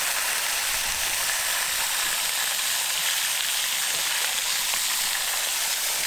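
Bacon frying on a hot camp griddle: a steady sizzle with small scattered pops and spits.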